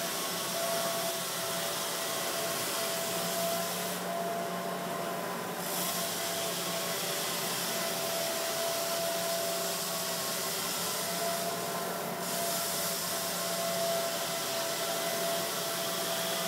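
Electric floor sander running steadily on an oak floor, sanding off the old finish: a constant motor hum under a steady hiss that eases briefly twice.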